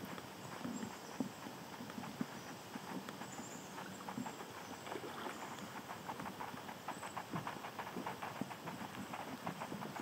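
Water splashing and lapping around a moving kayak: a quick, uneven patter of small knocks and drips, several a second.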